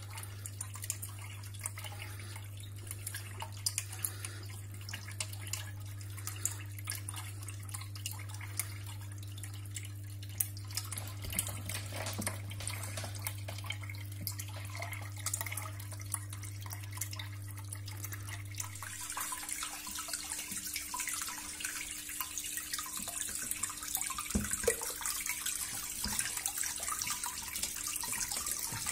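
Water from a turtle tank's filter outlet splashing and trickling into the tank, with small drips and splashes throughout. A low steady hum runs underneath and stops about two-thirds of the way through, after which the splashing is louder.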